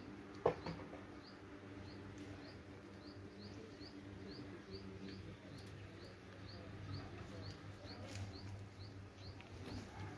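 A bird calling faintly in a steady series of short rising chirps, about two a second, that stop about seven seconds in. A single sharp click about half a second in, over a faint low hum.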